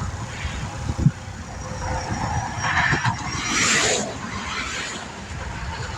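Interstate traffic rumbling past, with one vehicle's tire noise swelling and fading about three to four seconds in, and a short knock about a second in.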